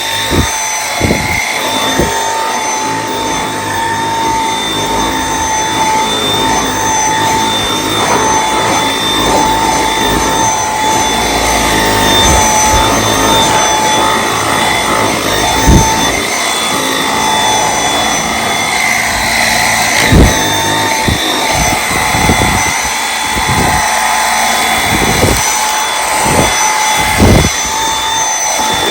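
Dyson V8 Extra cordless handheld vacuum running with a mini motorized brush tool fitted: a steady high-pitched motor whine over rushing air, broken by occasional knocks and thumps.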